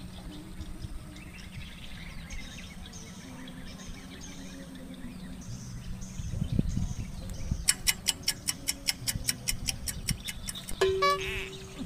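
Fishing reel clicking steadily, about five or six sharp clicks a second for some three seconds, as line is wound in, with birds calling faintly before it. A short hum follows near the end.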